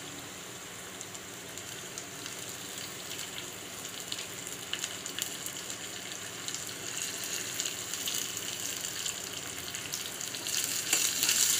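Garlic, green chillies, cumin and ajwain seeds frying in hot oil in a small pan: a steady sizzle with scattered crackles, growing louder near the end.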